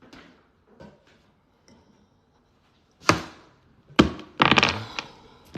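A few thuds and knocks: faint taps in the first two seconds, then a sharp loud thunk about three seconds in and a quick run of louder knocks and clatter about a second later.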